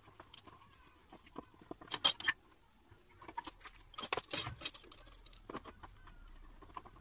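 Scattered light clicks and knocks of hand tools and wood being handled. The loudest cluster comes about two seconds in and another a little after four seconds.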